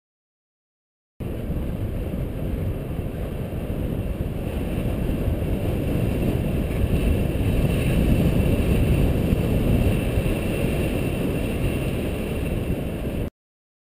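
Wind buffeting the microphone of a camera carried on a moving bicycle, a steady low rumble mixed with tyre noise from the paved path. It cuts in abruptly about a second in and cuts off just as abruptly near the end.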